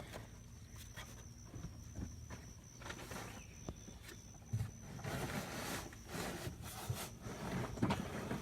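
Spin-on oil filter being worked loose with a filter wrench: scattered metal clicks and knocks, then louder scraping and rustling from about five seconds in as the wrench and filter turn.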